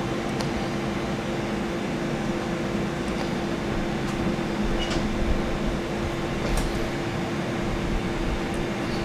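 Steady hum of a kitchen ventilation fan with a constant tone running through it, broken by about five faint light clicks of utensils at the plate and cheese board.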